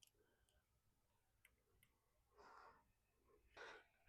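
Near silence: a few faint small clicks and two soft rustles from hands working a window screen's mesh and spline.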